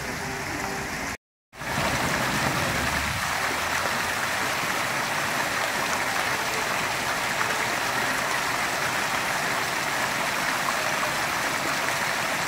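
Water jets of an ornamental cast-iron fountain splashing steadily into its basin. The sound cuts out briefly about a second in and comes back louder and closer.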